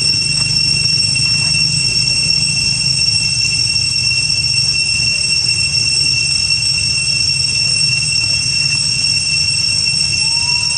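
Steady, unbroken high-pitched insect drone, typical of a cicada chorus, over a low rumble. A brief squeak comes near the end.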